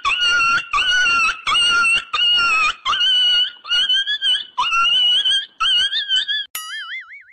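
A high-pitched whining squeal repeated about nine times at an even pace, roughly once every 0.7 s, each with a quick upward start. Near the end it changes to a wavering, warbling tone.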